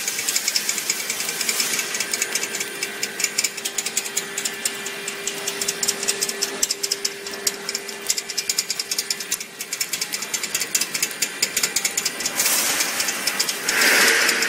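Biscuit production line machinery running: a fast, steady rattle of clicks over a steady hum. A hiss comes in near the end.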